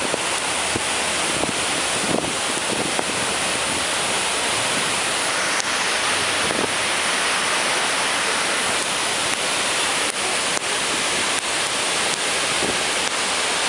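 Waterfall: a steady, even rush of heavy falling water and spray.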